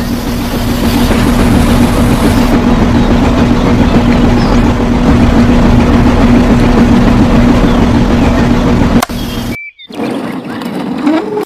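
A motor running steadily with a constant hum, cutting off suddenly about nine and a half seconds in; a quieter, different sound follows.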